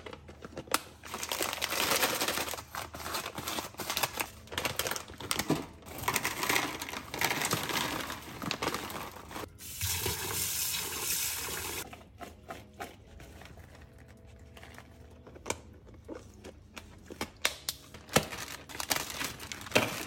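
Plastic packaging and containers crinkling and clattering as frozen food is handled. From about ten seconds in, a kitchen tap runs onto frozen peas in a plastic colander for about two seconds. After that come quieter scattered clicks, and a plastic bag of frozen prawns crinkles near the end.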